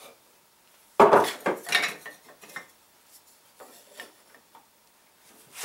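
Steel punch and chainsaw chain clinking and tapping at the workbench as the punch is worked against a link's rivet: one sharp metallic strike about a second in, then a cluster of smaller clinks, a few light ticks, and another sharp click near the end.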